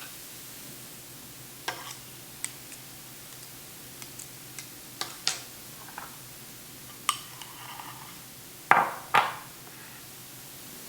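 Kitchen utensil clinking and knocking against dishes: a scatter of light taps and clicks, with two louder knocks in quick succession near the end.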